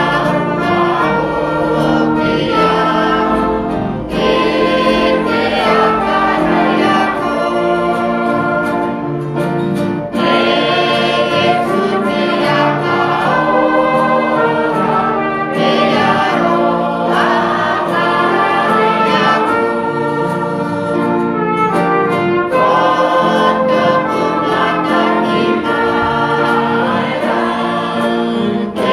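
A choir singing a hymn in several voices, with long held chords.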